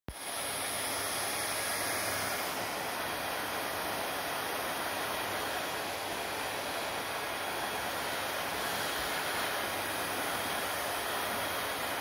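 Handheld hair dryer running steadily, blowing air onto wet hair: a continuous even rush of air with a faint low motor hum.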